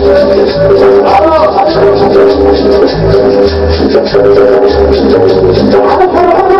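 Loud music played over a sound system: sustained held notes over a heavy bass line, with steady shaker-like percussion ticks.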